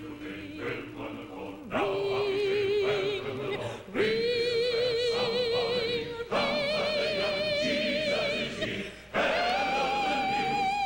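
Male voice choir singing, with a high solo voice holding long notes with vibrato over it. Each new held note starts about every two to three seconds and is pitched higher than the last.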